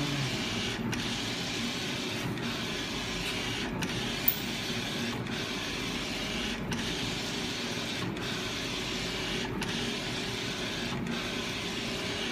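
Flatbed digital inkjet printer running, its print-head carriage sweeping back and forth across the bed with a steady mechanical whir. The whir dips briefly about every second and a half as the carriage turns at each end of its pass. There is one sharp click about four seconds in.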